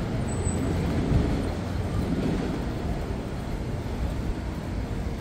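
Steady rumble of city road traffic, with no single vehicle standing out.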